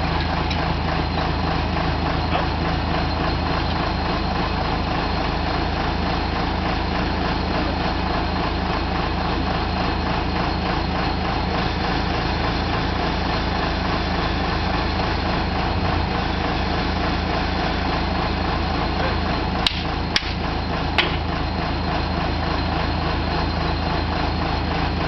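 A hollow-stem auger drill rig's engine running steadily with a deep, constant hum. A few sharp clicks sound close together about twenty seconds in.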